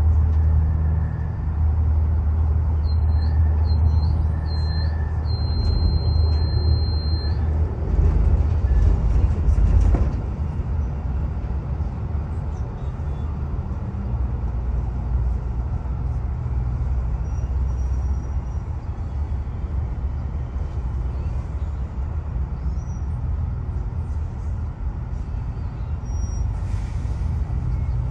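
Steady low rumble of a large vehicle running, with three short high beeps and then one longer beep a few seconds in. The rumble swells louder and drops back abruptly about ten seconds in.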